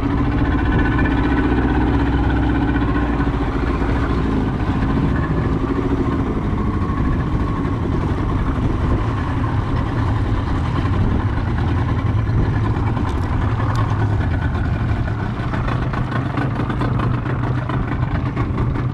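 A fishing boat's engine running steadily at slow trolling speed, a continuous low hum.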